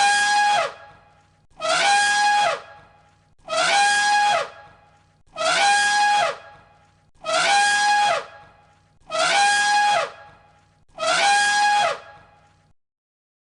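A trumpet-like animal call, about a second long and sliding down in pitch at its end, repeated seven identical times at even intervals of just under two seconds.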